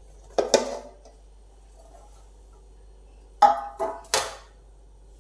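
Metal nonstick loaf pan knocking on a wooden chopping board as a baked cake is turned out of it. There is one knock with a short ring about half a second in, then three quick knocks near the end.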